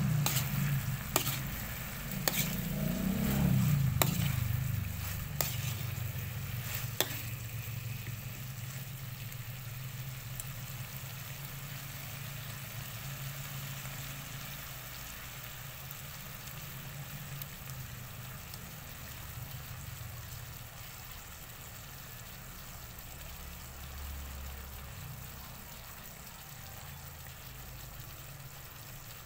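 Chicken feet sizzling in thick adobo sauce in a pan as the sauce reduces. A metal spatula clinks against the pan about five times in the first seven seconds as the pieces are stirred. A low hum sits underneath, strongest at the start.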